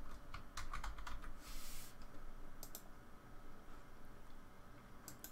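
Typing on a computer keyboard: a quick run of keystrokes in the first second and a half, then a short rustle and a few scattered clicks.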